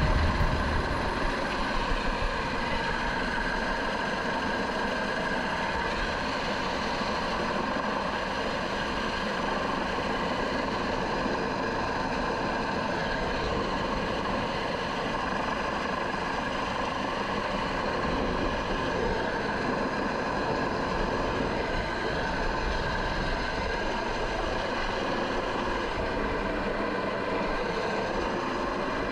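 Eurocopter MH-65 Dolphin helicopter running steadily in a hover, heard up close: a high turbine whine with several steady tones over a constant rush of rotor wash.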